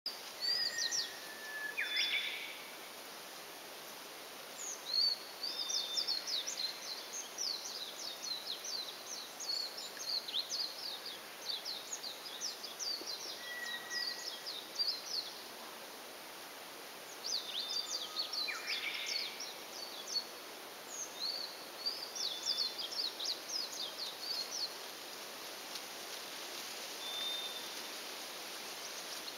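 White's thrush (toratsugumi) giving thin, level whistled notes every few seconds, some high and some lower. Rapid high twittering song of other small birds comes in long stretches over it and is the loudest sound, over a steady outdoor hiss.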